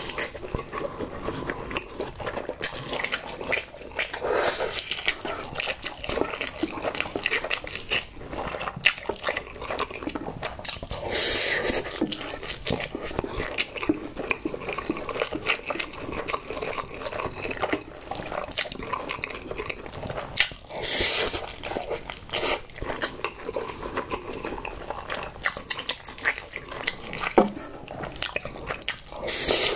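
Close-miked wet chewing and slurping of saucy Buldak carbonara instant noodles, a steady run of small wet mouth clicks. Louder slurps of about a second come around a third of the way in, about two-thirds in, and again near the end.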